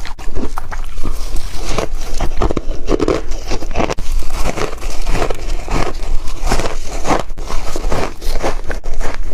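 Refrozen shaved ice chunks being bitten and chewed: loud crunches in quick succession, several a second.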